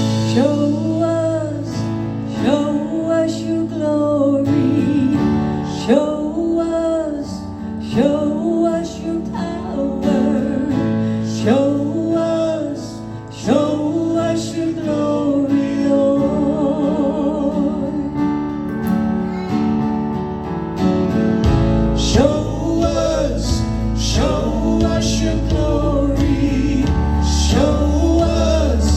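Live worship music: a band with guitar playing a contemporary worship song, with a singer's phrases over sustained chords. The bass comes in heavier about two-thirds of the way through.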